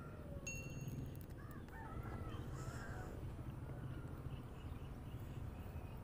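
Faint bird calls over a low, steady outdoor rumble, with a few curved calls about a second and a half to three seconds in.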